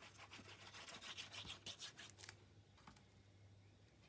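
Faint scratching and rubbing of paper being handled and slid on the craft work surface, busiest in the first two seconds, over a low steady hum.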